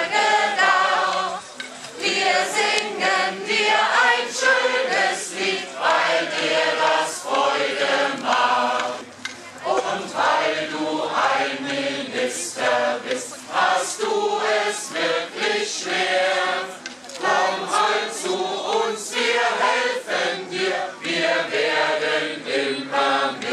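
A crowd of children and adults singing a German birthday song together, line after line, with short breaks between phrases.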